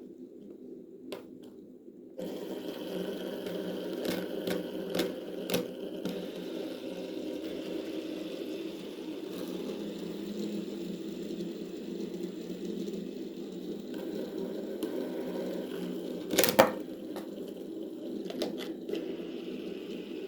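Plastic fidget toys being handled and squeezed: a steady low rustling buzz with scattered sharp clicks and pops, a few together about four to six seconds in and the loudest about sixteen and a half seconds in.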